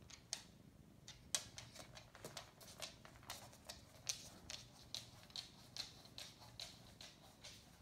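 A dog's claws clicking on a wooden floor as it walks about: faint, irregular light ticks, a few each second.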